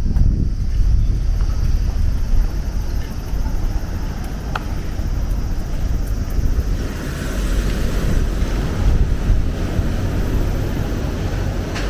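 Strong typhoon wind buffeting the microphone: a loud, uneven low rumble throughout, with a broader rushing hiss building about seven seconds in.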